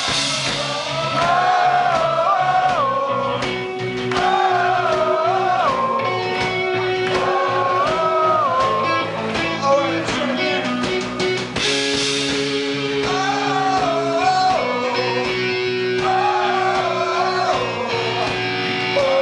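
A live rock band playing: a male singer sings phrases of a couple of seconds with short gaps, over electric guitars, bass and drums with cymbals.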